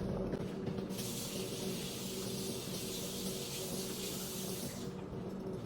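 Kitchen faucet running into the sink while hands are washed, a steady rush of water that starts about a second in and is shut off near the end.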